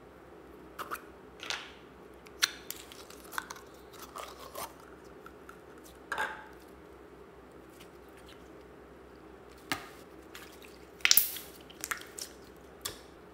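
Green glitter slime handled by hand: a plastic jar clicking, then the slime squished and pressed into other slimes, making scattered short sticky squelches and pops at irregular intervals, the loudest about eleven seconds in. A faint steady hum lies underneath.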